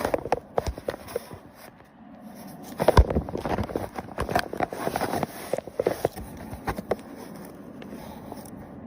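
Irregular taps, knocks and scrapes, thickest in the middle, with a dull thump about three seconds in.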